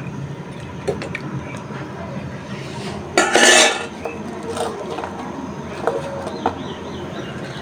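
Metal spoon stirring and scraping in a frying pan, then a stainless steel bowl being handled, with one loud clatter about three seconds in and small clinks around it.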